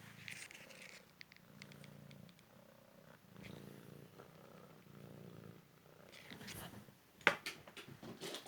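Cymric cat purring, a low rumble pulsing in phases. About seven seconds in, a sharp knock is followed by a few lighter taps.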